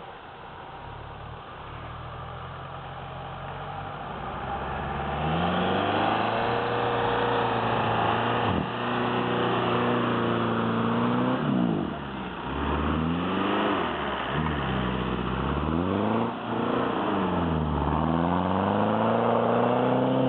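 Off-road vehicle's engine growing louder as it comes closer, then revving up and down repeatedly as it is driven through snow.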